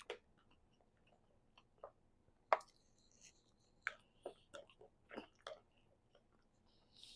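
Someone eating: quiet chewing with scattered short clicks and taps, the loudest about two and a half seconds in and a cluster of them a little later.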